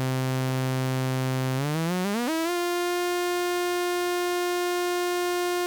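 Voltage-controlled oscillator of a DIY modular synth, its pitch steered by a joystick through an offset/scaler, sounding one steady low buzzy tone. About one and a half seconds in, the pitch glides smoothly up over about a second to a higher note and holds there.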